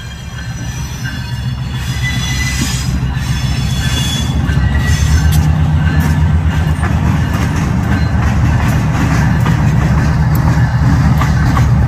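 Diesel locomotives of a freight train drawing near and passing, their engines rumbling louder over the first five seconds and then holding steady. High thin squealing from the wheels sits over the rumble in the first few seconds, and wheel clicks follow.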